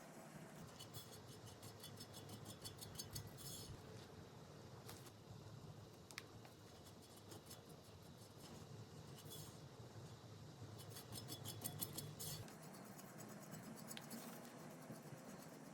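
Faint sounds of hands-on baking work: several runs of quick, even scraping strokes, a few seconds each, with a sharp click now and then.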